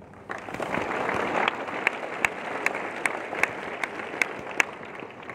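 Audience applauding, starting just after the start and dying away near the end, with a few sharp nearby claps standing out in an even beat of about two to three a second.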